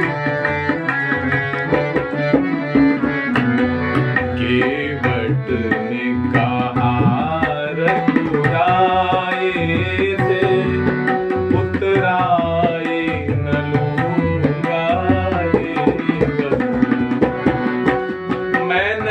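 Hindi devotional bhajan music: tabla drumming a steady rhythm under a wavering melody line.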